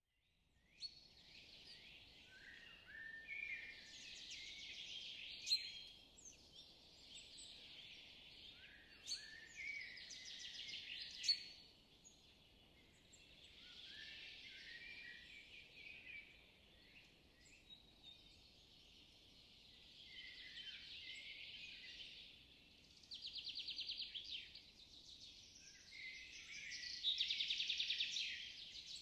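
Songbirds chirping and singing, with rapid trills near the end, and two sharp clicks, the loudest sounds, about five and eleven seconds in.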